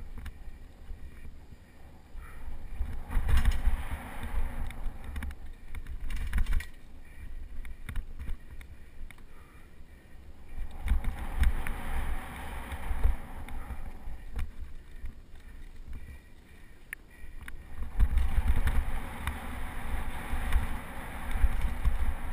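Mountain bike riding fast down dirt singletrack: wind buffeting the microphone as a low rumble, with tyres crunching over the dirt and scattered rattles and clicks from the bike. The rush swells and fades with speed, loudest a few seconds in, around the middle, and near the end.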